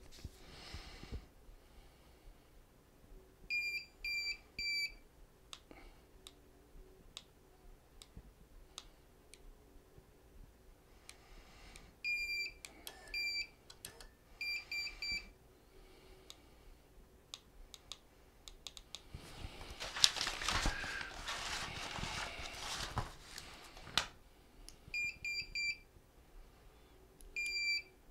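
Wireless key-fob receiver's beeper chirping in quick sets of three short, high beeps, several times over: the confirmation the receiver gives while a fob button is held down in pairing mode. Faint clicks come in between, and a few seconds of louder rustling noise about two-thirds of the way through.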